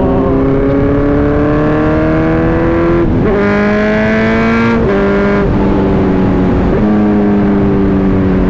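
Motorcycle engine heard from the saddle, pulling in gear with its note rising, dropping sharply at upshifts about three and five seconds in, then holding a fairly steady note at cruise with wind rush.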